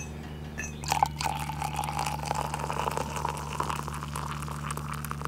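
Coffee poured from a stainless steel percolator pot into an insulated mug. A clink about a second in is followed by a steady stream of liquid that lasts until near the end.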